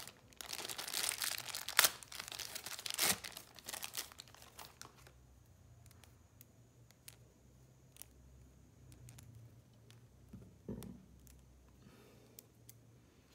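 Clear plastic bag crinkling and tearing as a USB cable is pulled out of it, with a couple of sharp snaps, for about the first four seconds. After that only a few faint light clicks as the cable is handled.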